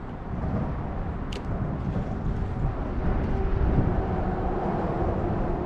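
Steady low rumble of passing motor traffic, with a faint engine tone coming in about halfway through. A single sharp click sounds about a second and a half in.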